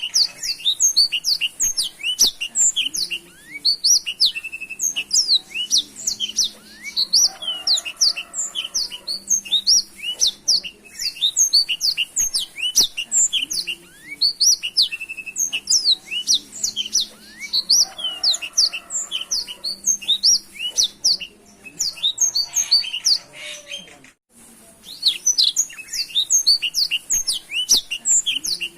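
Black-throated canary (blackthroat) singing a fast, unbroken song of high chirps and trills in full, vigorous voice, with a brief pause about 24 seconds in.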